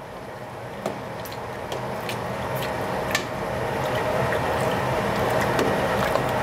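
Pot of charro beans in water and bouillon bubbling on the stove, a steady liquid bubbling that grows steadily louder, with scattered small pops.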